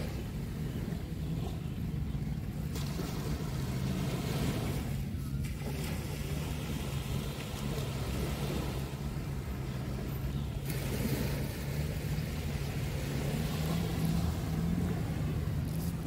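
Small waves washing onto a sandy shore, with a steady low motor drone underneath.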